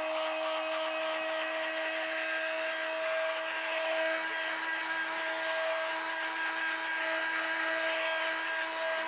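Handheld electric heat gun running steadily, its fan motor giving an even hum over the rush of blown air.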